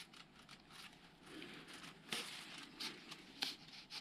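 Tennis overgrip being stretched and wound around a racket handle: a faint rustling of the tacky tape against the grip, with three sharper crackles in the second half as the tape is tugged and peels.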